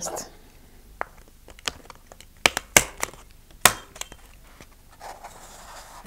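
Stapler snapping shut through thin card as a paper cone roof is fastened: about five sharp clicks, two of them louder, with paper crinkling around them.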